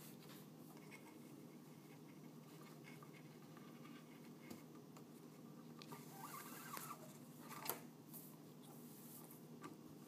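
Faint rustling and scraping of paracord being handled and pulled through the weave's loops, with a few small ticks and one sharper click about three-quarters of the way through, over a steady low room hum.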